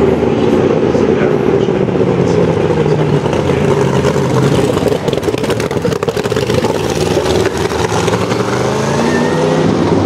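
Sauber-Mercedes C9 race car's twin-turbo V8 running under throttle, its note rising and falling with the revs and climbing again near the end. A stretch of rapid crackling comes around the middle.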